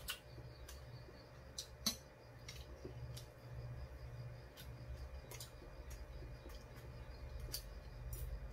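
Two people eating at a table: chewing, with scattered sharp clicks and clinks of metal spoons and chopsticks on dishes, the loudest about two seconds in, over a low steady hum.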